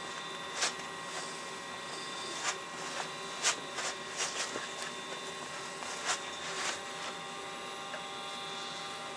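Tanned coyote hide being drawn over a breaking tool's blade to soften it, making short irregular scraping strokes, about seven in all, over a steady electrical hum.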